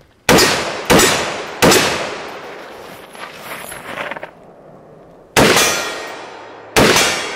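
Palmetto State Armory AR-10 semi-automatic rifle in .308 Winchester firing M80 147-grain ball ammunition: three quick shots, a pause, then two more, each crack trailing off in an echo.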